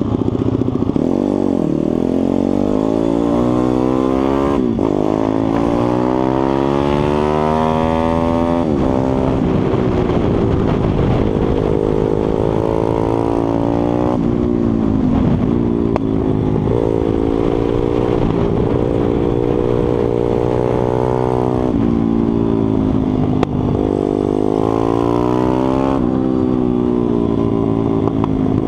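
A 140cc single-cylinder four-stroke pit bike engine heard onboard at race pace. The revs climb in long rising sweeps and drop back sharply several times, at gear changes and when easing off for corners, then pull up again.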